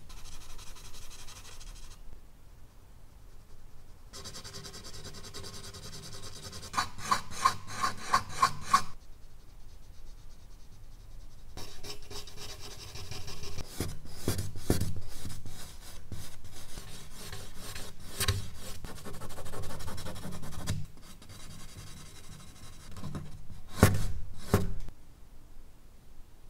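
Charcoal pencil and fingers working on medium-surface sketch paper: runs of scratchy hatching strokes, quick at about three or four a second in places, alternating with rubbing as the charcoal is blended, with short pauses between.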